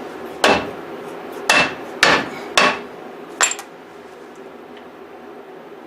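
Five hammer blows on metal, each with a short metallic ring, spaced unevenly over about three seconds.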